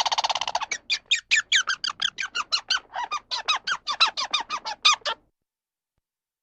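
An animal's call: a buzzing trill, then a rapid run of short squeaky notes, each falling in pitch, about six a second, that stops about five seconds in.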